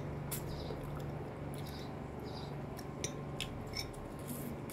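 Metal fork clicking and scraping against a glass plate in a scatter of light, irregular taps, with soft chewing and mouth sounds of people eating.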